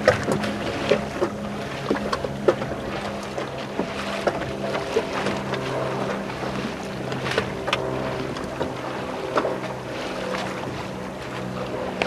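Small waves slapping and splashing against the hull of a boat on choppy water, with frequent irregular sharp slaps over a steady low hum.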